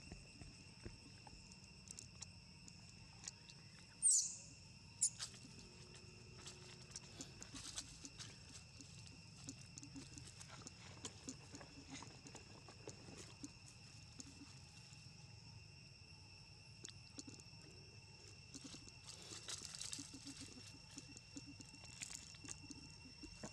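Dry leaf litter crackling and ticking as long-tailed macaques shift and pick through it, over a steady high-pitched whine. Two short, sharp high squeaks stand out about four and five seconds in.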